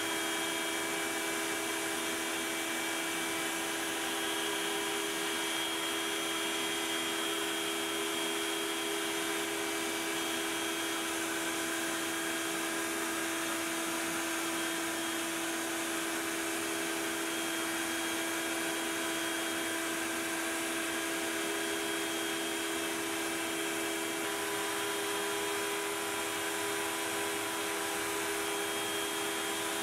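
Makita router on a Onefinity CNC machine running steadily while it cuts grid lines into the spoil board, with a shop vacuum drawing dust through the hose at the same time. A constant whine over a steady hiss.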